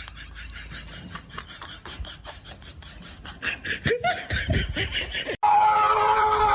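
People laughing, growing louder in bursts about halfway through. Then, after an abrupt cut, a loud, steady high-pitched sound takes over.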